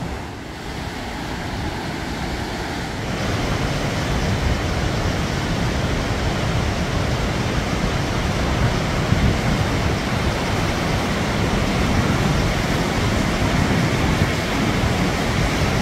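Indus River rushing: a steady, loud noise of fast-flowing water that gets louder about three seconds in.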